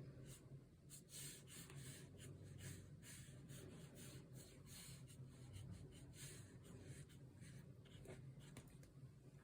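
Faint, irregular scratchy strokes of a paintbrush on watercolour paper as paint is applied, over a low steady hum.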